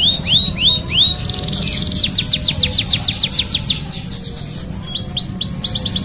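Domestic canary singing a long song. It opens with a few slower swooping notes and a brief buzzy rattle, then goes into rapid rolls of high falling whistled notes, about eight a second, easing briefly into slower notes near the end before rolling fast again.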